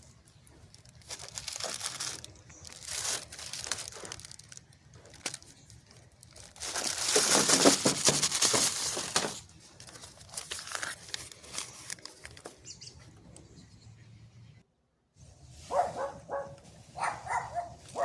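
Paper bag rustling and crinkling as it is handled, in several bursts, the longest and loudest about seven to nine seconds in.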